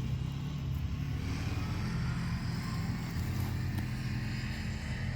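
A motor vehicle's engine running steadily at an even, low pitch.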